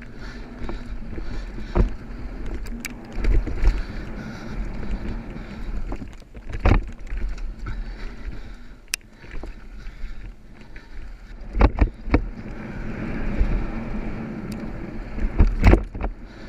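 Mountain bike descending a dirt trail: a steady rumble of tyres on loose dirt and wind buffeting the on-board camera's microphone, with several sharp knocks and rattles as the bike jolts over bumps.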